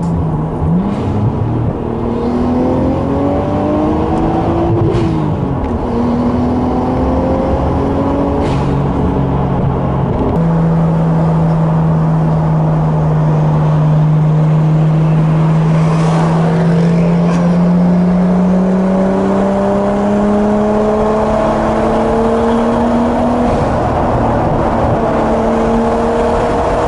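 Nissan Skyline R33's straight-six engine heard from inside the cabin while driving, its pitch climbing over the first few seconds as the car accelerates, then settling into a steady cruising drone that slowly rises, over constant tyre and road noise.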